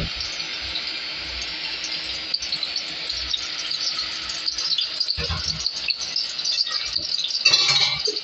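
Cooking oil heating in an aluminium pot on an induction cooker, sizzling with a steady hiss and fine crackling, a faint low hum underneath and a louder burst of crackle near the end.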